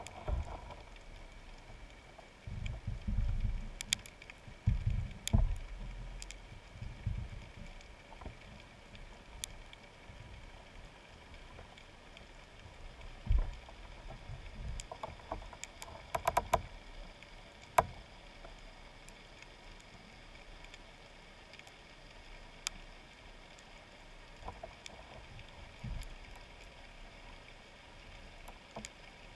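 Underwater sound picked up by a submerged camera: low thuds and rumbling of water moving against the housing, heaviest in the first few seconds and again about halfway through, with scattered sharp clicks and a faint steady high hum underneath.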